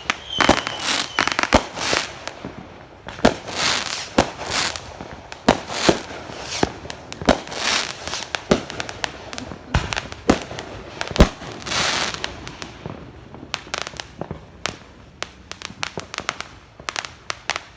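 Fireworks going off one after another: a steady run of sharp bangs, some followed by a crackling fizz. Near the end they give way to a quick rapid-fire string of smaller pops.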